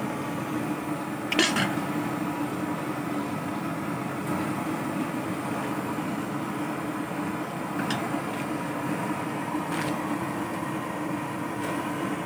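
An LPG ring burner running with a steady rushing noise under a wok of chicken simmering and sizzling in its own juices, with a low steady hum beneath. A few sharp clicks come about a second and a half in and again around eight and ten seconds.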